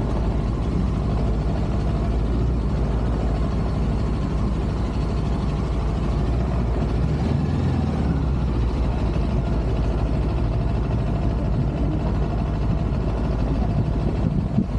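Steady engine and road noise of a moving vehicle, heard from on board, with a continuous low rumble and no distinct events.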